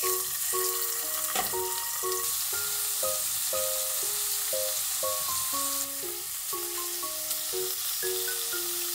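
Thin slices of meat sizzling in hot sesame oil in a nonstick pan. The sizzle starts suddenly as the meat goes in, then runs on steadily while the slices are spread and turned with chopsticks. Soft piano music plays over it.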